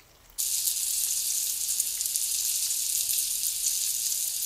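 Chicken skewers frying in hot oil in a pan on a low flame: a steady, even sizzle that starts abruptly about half a second in.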